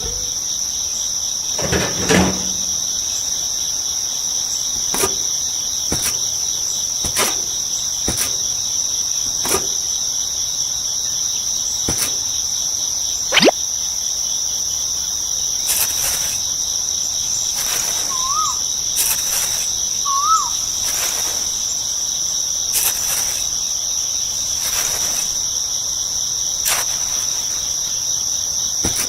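Steady high-pitched cricket chirping, with light clicks and knocks every second or two, one louder knock about halfway through, and two short chirps past the middle.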